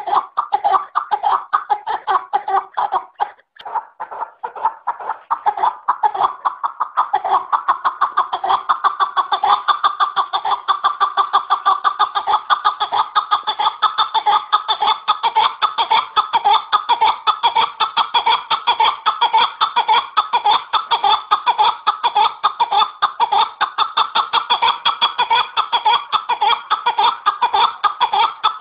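Chukar partridges calling: a rapid, unbroken run of cackling chuck notes, several a second, with a short break about three and a half seconds in.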